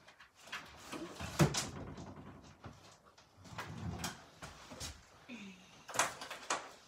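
Knocks, bumps and rustling of household things being handled and put away, with a sharp knock about a second and a half in and another about six seconds in.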